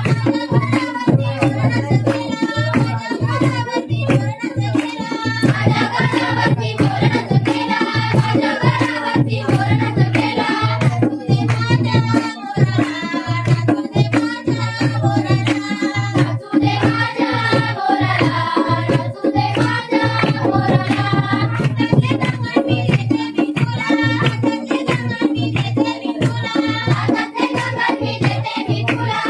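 Folk song sung over a hand drum beating a steady, quick rhythm.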